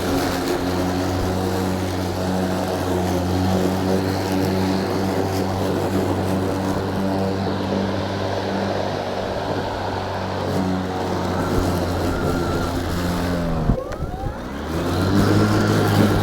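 EGO battery-powered lawn mower running with a steady motor hum. Near the end the hum dips and breaks off briefly, then climbs back up.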